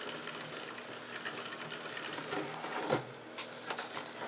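Ryobi SX2n spinning reel being cranked to wind monofilament line onto its spool: a steady, smooth whir with light, irregular ticks and no squeaking.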